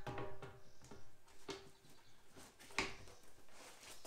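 Radiator cooling-fan shroud and alloy radiator being handled and fitted together: a few separate knocks and clatters, each with a short ringing note. The sharpest knock comes nearly three seconds in.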